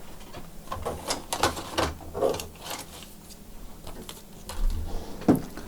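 Hands handling laptop parts during reassembly, making irregular light clicks and taps of plastic and metal.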